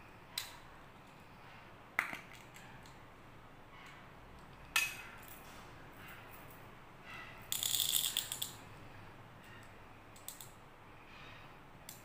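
Clear plastic candy capsule handled and prised open, giving three sharp plastic clicks, then just past the middle a dense, roughly one-second rattle of small sugar-coated chocolate candies tumbling against hard plastic, with a few lighter ticks after.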